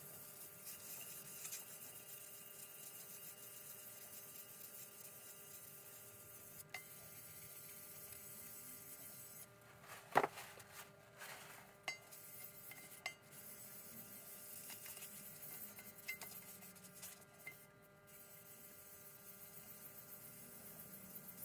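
A steel nut being rubbed by hand on wet abrasive paper over a steel plate, a faint steady scrubbing as its top is flattened and polished. About ten seconds in it is lifted and set back down, with a few light metallic clicks.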